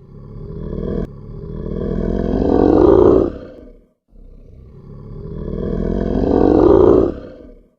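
Two long animal roars, each swelling louder and rising in pitch for about three seconds before breaking off; the second starts about four seconds in.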